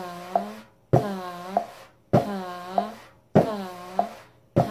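Frame drum played in a steady repeating pattern, about one cycle a second: a sharp stroke on the head, then a brushing rub across the skin while the drum's ringing tone dips and rises in pitch, closed by a lighter tap. Four full cycles are heard.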